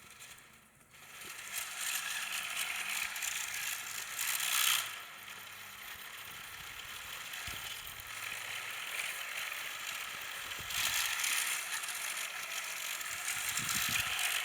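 Lego RC car's hobby-grade electric motor driving the rear wheels through Lego gears and a differential: a rattling mechanical whir that swells about four seconds in and again from about eleven seconds, as the throttle changes.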